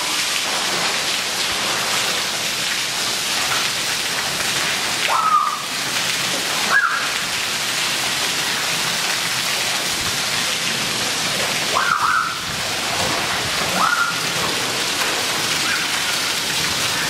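Heavy rain falling steadily and splashing on wet paving and ground, with four short high cries from children breaking through it.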